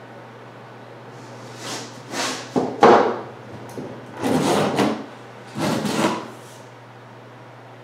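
Wooden drawer parts and bar clamps being handled on a wooden assembly table: a run of knocks and scrapes, the loudest about three seconds in. A steady low hum runs underneath.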